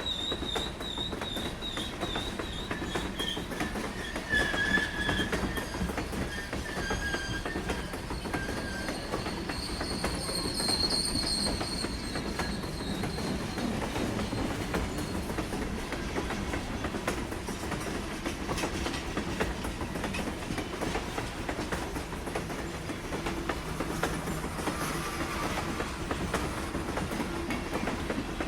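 Train passing close by: a steady rumble and clatter of wheels on rails, with high wheel squeals that come and go in the first half.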